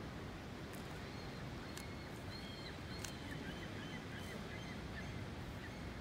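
Outdoor ambience: a steady low rumble with faint bird chirps through the middle, and a few soft clicks of a 3x3 Rubik's cube being turned by hand.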